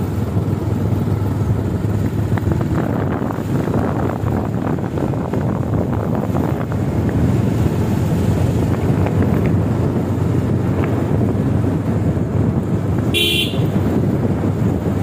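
Loud, steady engine rumble and wind noise from a moving road vehicle, with one short horn toot about 13 seconds in.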